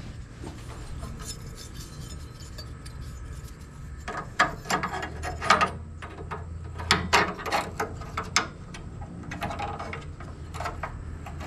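A small bent piece of sheet steel is handled and pressed against the car's A-pillar sheet metal. From about four seconds in there are scattered metal-on-metal clicks and scrapes in three clusters, over a low steady hum.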